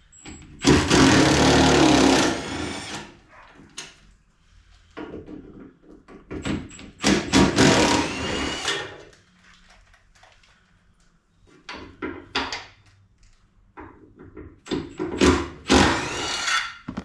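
A power tool running in three bursts of about two seconds each, with clicks and knocks of handling between them, typical of bolts being driven out while stripping the truck's front end.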